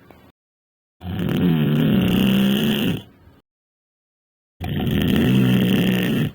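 Snoring: two long rasping snores of about two seconds each, with dead silence between them.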